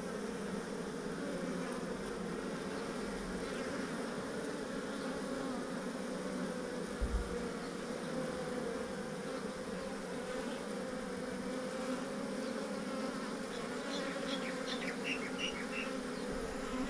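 Steady buzzing of a honeybee swarm, a dense hum of many bees. A brief soft thump about seven seconds in, and a few short high chirps near the end.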